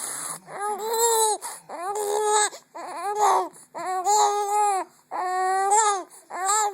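Three-month-old baby crying in a string of short wails, about one a second, each held on a steady pitch and falling away at its end.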